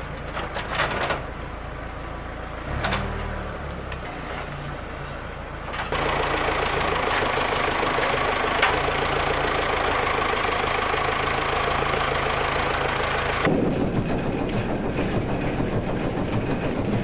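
An engine starts suddenly and runs, then gets clearly louder about six seconds in. Near the end there is an abrupt cut to a similar steady engine-like sound.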